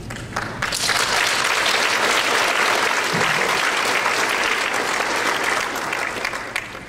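Audience applauding: a few scattered claps at first, then dense steady clapping that dies away near the end.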